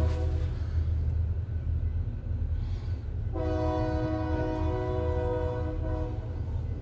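BNSF locomotive air horn sounding a chord of several notes over a steady low rumble. It cuts out just after the start, then comes back about halfway through as a long held blast.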